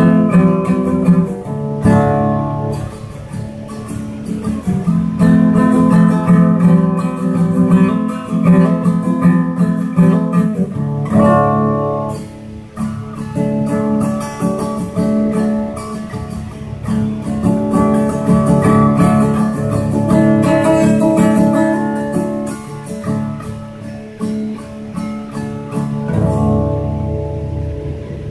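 Acoustic guitar strummed in a run of chords, with a short dip in loudness about halfway through.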